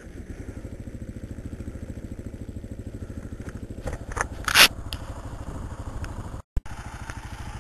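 Kawasaki KLR's single-cylinder engine idling with a steady, even pulse. About four seconds in come a few brief scrapes and clatters, the loudest moment, and near the end the sound cuts out for an instant.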